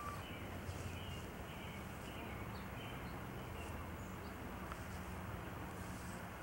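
Quiet outdoor background: a steady low hum and hiss with a few faint, short high chirps scattered through it. No barking or other loud sound.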